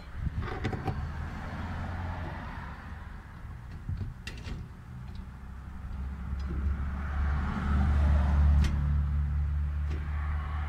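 A steady low engine-like rumble that swells and grows loudest past the middle, with a few sharp clicks and knocks of hard plastic as the fuel pump module is handled and seated in the tank opening.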